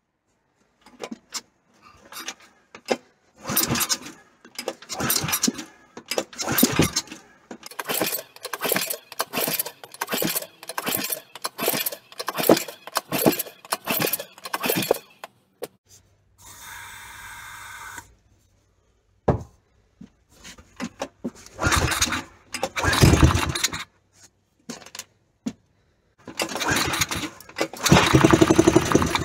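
Recoil starter of a 1970s Honda G35 3.5 hp engine being pulled over and over, each pull a short whirring rasp about once a second, in three runs with pauses between. The engine does not start, which is put down to a probably dirty carburetor. A short steady hiss comes between the first and second runs.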